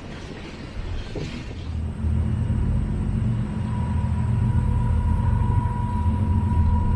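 Diesel freight locomotive engines rumbling past, growing louder about two seconds in, with a thin steady whine joining shortly before the midpoint.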